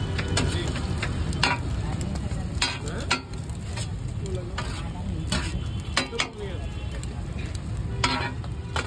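Omelette sizzling on a hot flat griddle while a wide metal spatula scrapes and clacks against the plate, about eight sharp strokes at uneven spacing over the steady frying hiss.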